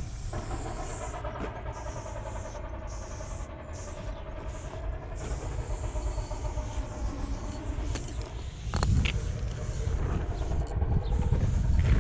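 Aerosol spray paint can hissing through a four-needle skinny cap adapter, in short bursts with brief breaks as lines are sprayed. Under it runs a steady low rumble that swells about nine seconds in and again near the end.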